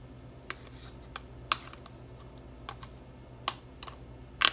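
Irregular light clicks and taps as a fork scrapes sautéed mushrooms out of a plastic container into a stainless steel bowl, the sharpest tap near the end, over a low steady hum.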